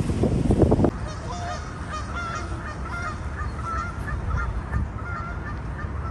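Wind buffeting the microphone for about the first second, then geese honking repeatedly, a long run of short calls several times a second.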